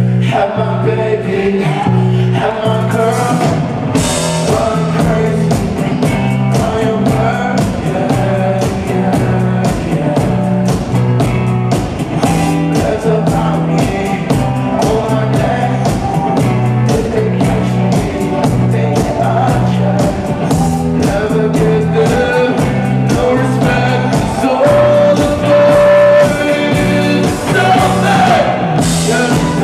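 Rock band playing a song: a steady drum beat, electric guitar and bass under a male lead vocal, with a held note near the end.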